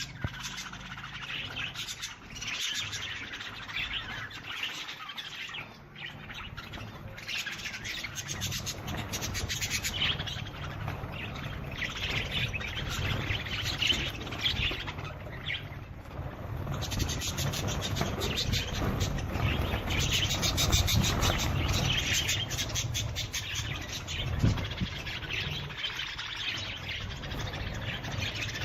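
Many birds chirping and twittering without a break, a busy flock chorus, over a low steady rumble that grows louder partway through.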